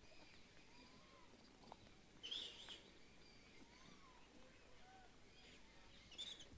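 Faint background of birds chirping, with two short, sharper high calls about two seconds in and near the end.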